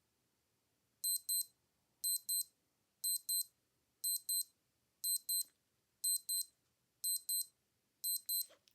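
Old digital watch alarm beeping: a high double beep repeated once a second, eight pairs in all, then a faint click near the end.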